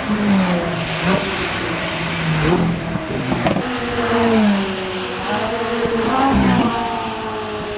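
Ferrari 458 Italia's V8 engine accelerating hard away on a wet track. The revs climb and then drop with several quick upshifts, over the hiss of tyre spray.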